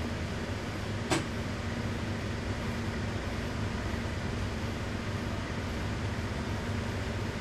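Steady low hum of workshop background noise, with one short sharp click about a second in.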